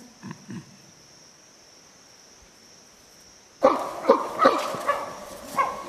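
A steady high insect chirr with a few short low grunts at the start. About three and a half seconds in, the insect sound is gone and a louder, busy run of short voiced calls and knocks takes over.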